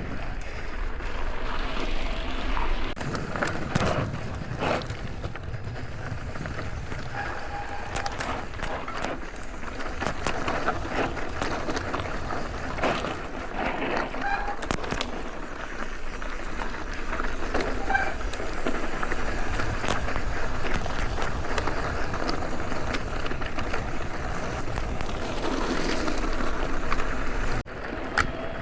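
Mountain e-bike rolling over a rough dirt trail: tyre noise and steady rattling of the bike over the ground, with wind on the microphone and a few brief high squeaks.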